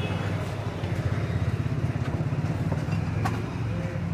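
A motor engine idling steadily with a fast low throb, with a couple of faint clicks over it.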